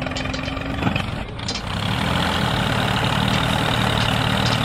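Engine of a homemade mini tractor running steadily at idle. It takes over about a second and a half in, after music cuts off.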